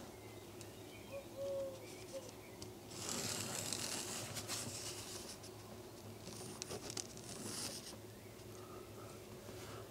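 Ballpoint pen tracing along thick veg-tan leather: faint scratching in two stretches of a second or two each, over a low steady hum.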